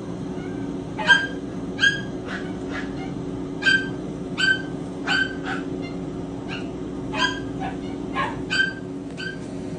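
A kitten mewing again and again: about a dozen short, high-pitched cries at irregular intervals, several falling in pitch. Under them runs a steady low hum.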